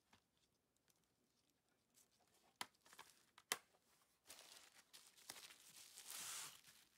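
Stiff paper cards being handled and flipped: faint rustling and sliding, with two sharp taps about two and a half and three and a half seconds in, and a longer papery swish near the end.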